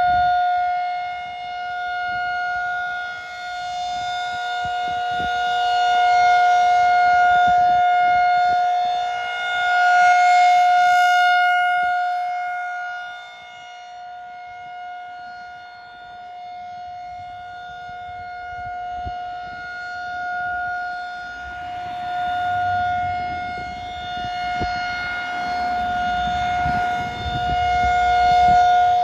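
Outdoor tornado warning siren sounding a steady tone, with a weaker lower tone beneath it. The sound swells and fades slowly in loudness, dropping off about halfway through and coming back up near the end.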